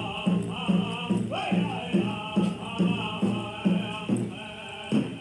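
Powwow drum beating steadily about twice a second, with a group of singers chanting over it; near the end the beat breaks off, leaving one more strike.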